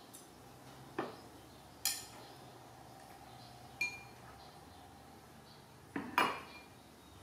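Ceramic plates and bowls clinking against each other and against chopsticks as they are handled and set down. A few separate sharp clinks, one with a brief ring, with the loudest about six seconds in.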